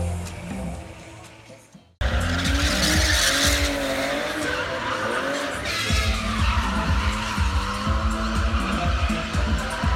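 Stunt car engines running hard with tyres squealing in skids, over loud music with a steady beat. It cuts in abruptly about two seconds in, after the music has faded away.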